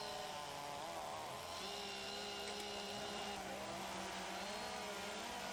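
Chainsaws running while carving wood, the engine pitch holding mostly steady with small wobbles.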